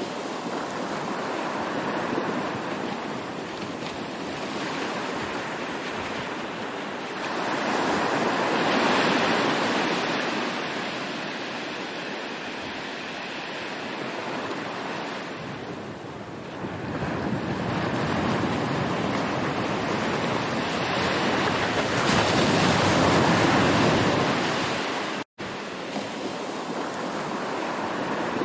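Ocean surf: waves washing in and drawing back in a steady wash of noise, swelling louder twice, around 9 seconds and again around 23 seconds. The sound drops out for a split second about 25 seconds in.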